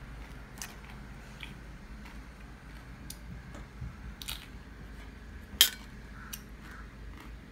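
Eating and handling noises at a table: a few scattered crunches and clicks, the sharpest about five and a half seconds in.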